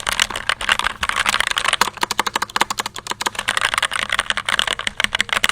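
Fast continuous typing on a low-profile mechanical keyboard with red linear switches: a rapid, uneven stream of key clacks.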